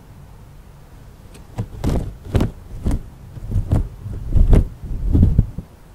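A run of about nine irregular thumps and knocks close to the microphone, starting about a second and a half in and stopping near the end, heavy in the low end.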